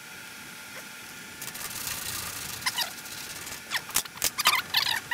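Short, high squeaks and a few clicks from the steel-tube cabin frame and its riveted aluminium brackets as the tube is worked loose. The frame rubs and shifts against the bulkhead now that the bracket rivets are drilled out.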